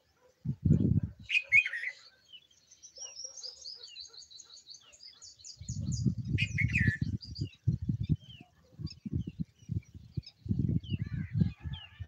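Birds singing and calling in the open, with a rapid run of high chirping notes from about three seconds in and lower calls about one and a half and seven seconds in. Low buffeting on the microphone comes and goes and is loudest from about six seconds on.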